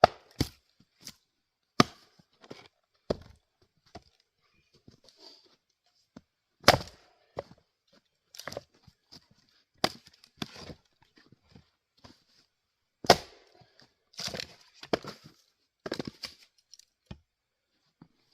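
Axe splitting firewood on a chopping block: several sharp chops of the bit into wood, a few seconds apart, with lighter knocks and clatter between them.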